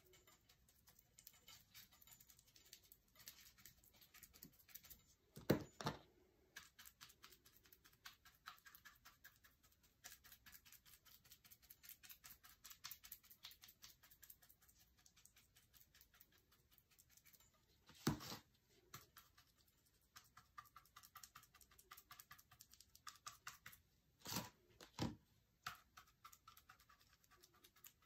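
Chip brush pouncing a thick chalk paint and baking soda mix onto a lamp body: rapid, faint dabbing taps, with a few louder knocks.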